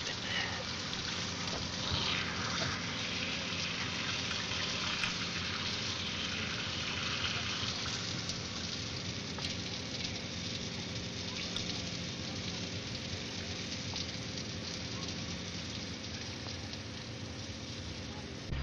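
Fire hose spraying water in a steady rush, with a low steady hum beneath it.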